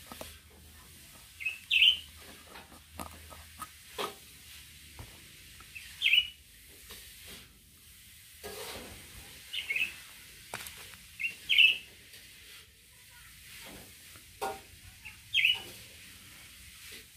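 A bird chirping again and again, short high chirps, often two close together, about every two seconds. Between them come light clicks and ticks from a metal pellet tin being opened and its lead airgun pellets handled.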